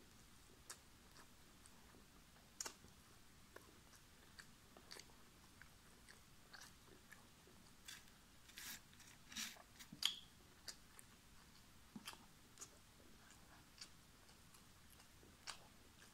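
Faint chewing and biting sounds of someone eating food by hand: scattered short clicks and crunches, with a louder cluster a little past halfway.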